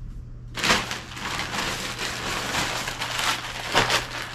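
A clear plastic packaging bag crinkling and rustling as it is handled, starting about half a second in as a dense, irregular crackle.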